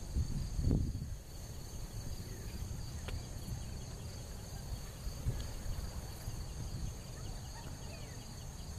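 Outdoor background: a low, irregular wind rumble on the microphone, with a steady high-pitched insect drone over it and a faint tick or two.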